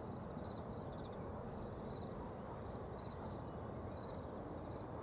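Steady low rumble of a distant BNSF double-stack freight train rolling through town, heard from high above. Short, high chirps repeat over it about twice a second.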